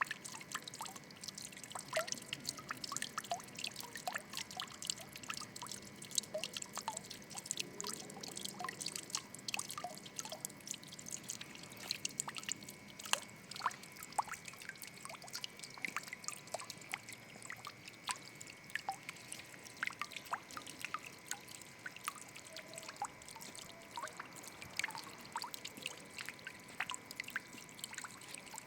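Water trickling and dripping, with a continuous irregular patter of small drops and splashes over a steady hiss of running water.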